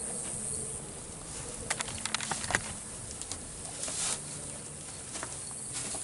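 Crickets or other insects chirring steadily in the background. A few short clicks come about two seconds in and again around four seconds.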